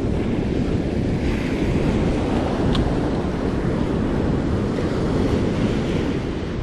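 Heavy surf breaking and washing up the beach, under a steady low rumble of wind buffeting the microphone.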